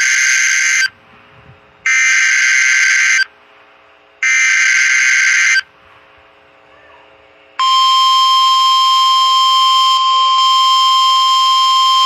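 Emergency Alert System SAME header: three loud screeching digital data bursts, each a little over a second long with a second's gap between them. About eight seconds in, the steady single-pitch NOAA Weather Radio 1050 Hz warning alarm tone begins. Together they announce the start of a new weather alert broadcast.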